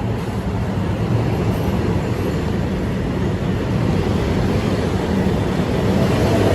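Train running past on the track, a steady loud rumble of wheels and running gear.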